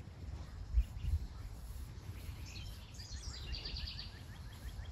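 A songbird sings a quick trill of repeated high notes from about two and a half seconds in, over a low, uneven rumble that has two dull thumps about a second in.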